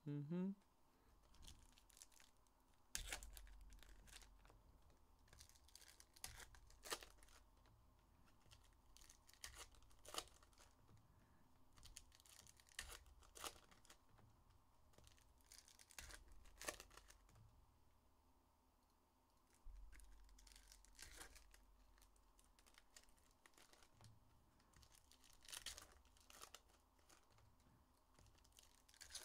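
Faint tearing and crinkling of trading-card pack wrappers being ripped open, with scattered sharp crackles and the shuffle of cards being handled.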